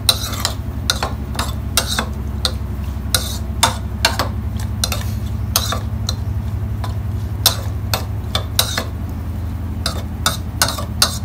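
Metal spoon stirring a dressing of sliced shallots and chilies in a bowl, clinking irregularly against the bowl one or two times a second, over a steady low hum.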